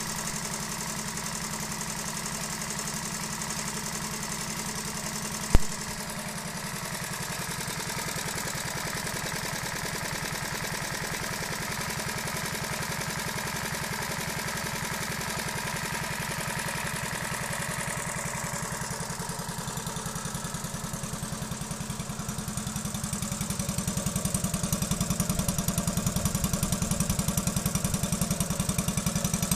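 Honda Novio moped's 50cc two-stroke engine running steadily at idle on its first run after a full rebuild. One sharp knock sounds about five seconds in, and the engine note grows louder near the end.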